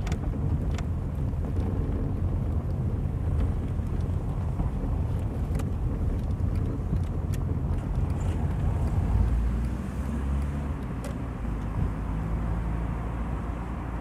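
Car driving, heard from inside the cabin: a steady low rumble of engine and tyres over cobblestones, with a few light rattling clicks. The rumble eases a little after about ten seconds as the car moves onto smoother road.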